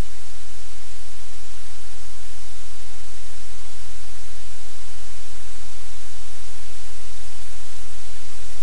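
Loud, steady static hiss with a strong low hum underneath, unchanging throughout.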